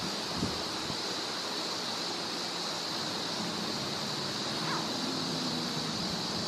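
Steady outdoor hiss, like wind, with a continuous high-pitched hiss above it and a faint low hum through the middle; nothing sudden stands out.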